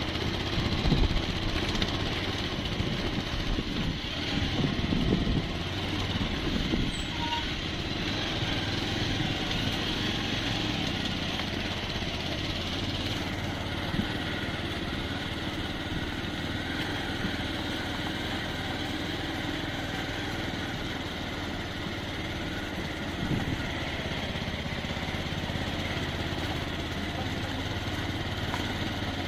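Motorcycle engine running steadily, with louder uneven low rumbling in the first several seconds.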